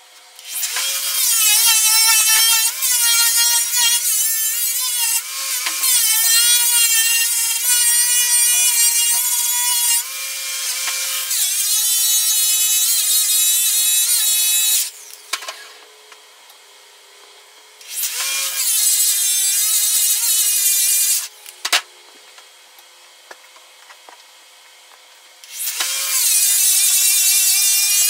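Electric polisher spinning an orange/yellow airway buffing wheel with green cutting compound against an aluminum snowmobile tunnel, at the cutting stage of polishing. It gives a high whine with many overtones that wavers in pitch. It runs in three passes: a long one of about fourteen seconds, then two shorter ones, with pauses between.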